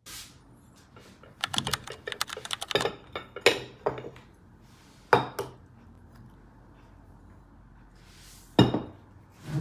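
Ceramic dishes set down on a wooden table: a quick run of clinks and clatters about a second and a half in, then separate knocks a few seconds apart, the last and loudest near the end.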